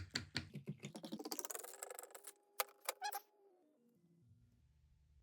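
Quick scraping strokes of hand filing or polishing on a watch part at a small watchmaker's lathe, about five a second, stopping about a second in. A few light clicks follow, then a tone that falls in steps and fades into a faint low hum.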